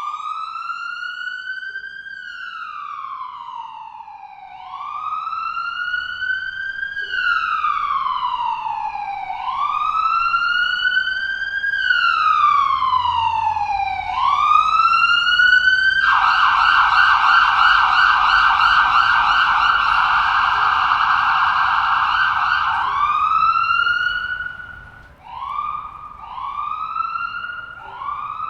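Ambulance siren wailing, its pitch rising and falling in slow sweeps of about two and a half seconds and growing louder over the first dozen seconds. About sixteen seconds in it switches to a fast warble for about seven seconds, then goes back to shorter, quicker wails.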